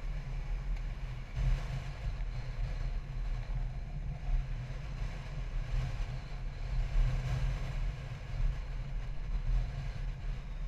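Motorcycle riding along at a steady cruise, heard from a camera on the bike: a low engine rumble mixed with wind buffeting the microphone, the level rising and falling unevenly.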